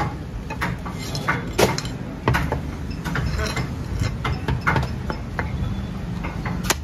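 Heavy meat cleaver chopping goat head meat on a wooden log chopping block: a run of irregular, sharp knocks as the blade strikes the wood, several loud ones among lighter taps.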